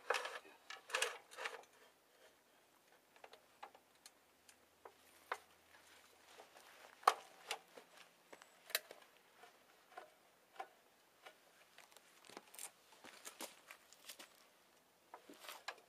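Scattered light clicks and taps of tools and lumber being handled while a cut is set up, with one sharper knock about seven seconds in; no saw is running.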